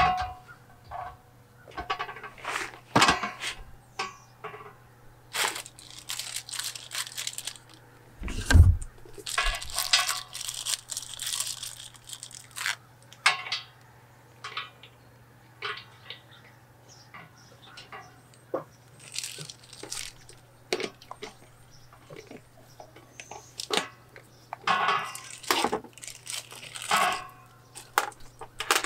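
Handling noises from assembling large plastic whole-house water-filter housings and their paper packaging: scattered plastic clicks and knocks and spells of rustling paper, with one heavy thump about eight and a half seconds in. A low steady hum runs underneath.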